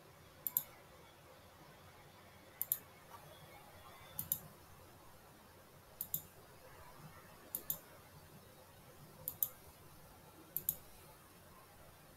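Computer mouse clicking: seven quick pairs of sharp clicks, spaced about one and a half to two seconds apart.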